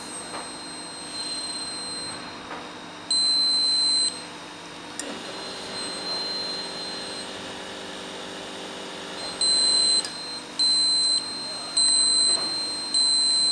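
Beeper of an AT6000 digital breathalyzer: one high beep about 3 s in, a softer steady tone for about five seconds while the sample is taken in, with a click as it starts and stops, then a run of short beeps about once a second as the reading comes up near the end.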